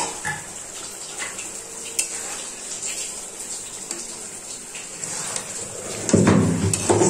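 Metal spatula scraping and clinking in a pan of onion-spice masala and potatoes as they fry, with a steady sizzle underneath. The masala is being sautéed down (kasha). There is a louder clatter of cookware about six seconds in.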